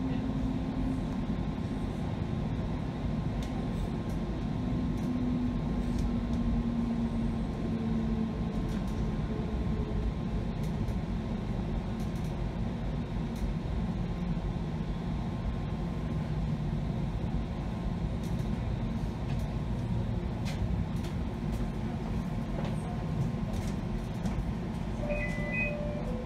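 Bombardier Flexity Freedom light rail vehicle running, heard from inside the passenger cabin: a steady low rumble with a faint whine that drops slightly in pitch over the first several seconds. A short electronic beep sounds near the end.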